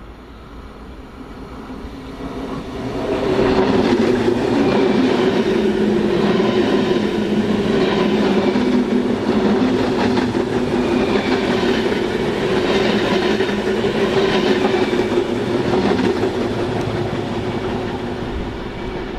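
RRX Siemens Desiro HC (class 462) electric multiple unit passing close along the platform track: a steady electric hum with wheel and rail rumble. It builds over the first few seconds and stays loud for about twelve seconds, then eases off near the end.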